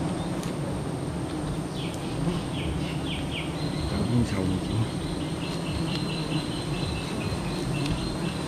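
High-pitched insect call: a few short chirps, then from about three and a half seconds in a steady shrill trill that stops near the end, over low rustling and handling noise.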